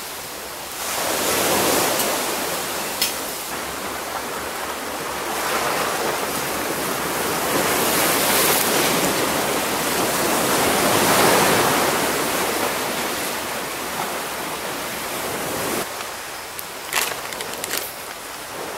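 Waves washing up a beach, a rushing surge that swells and falls back every few seconds. About three-quarters of the way through it gives way to a quieter hiss with a few sharp crackles from a campfire.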